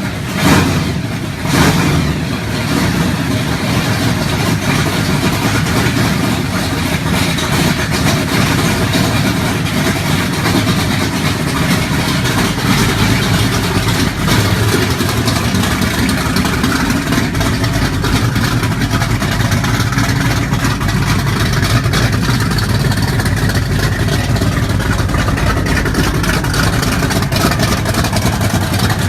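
Muscle car engine revving: a few sharp throttle blips in the first two seconds, then running steadily at high revs.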